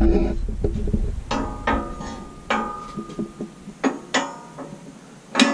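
Steel tube and tube-bender parts knocking together as the tube is fitted into the bender's die: several sharp metallic clanks, each ringing briefly before it fades.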